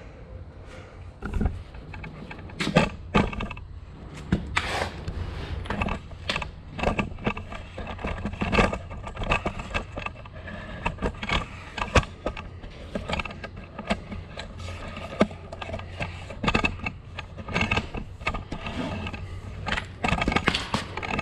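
Handling noise from the camera being moved and adjusted: irregular knocks, clicks and scrapes over a steady low rumble.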